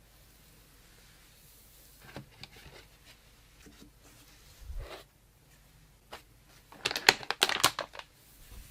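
Handling noises: scattered clicks and rustles, then a dense burst of crinkling and clicking about seven seconds in, as of packaging or parts being handled.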